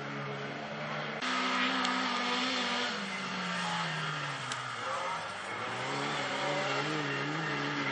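Autocross race cars' engines running hard on a dirt track. The sound steps up sharply just over a second in, and the engine pitch falls from about three to five seconds in as a car backs off for a bend, then climbs again as it accelerates away.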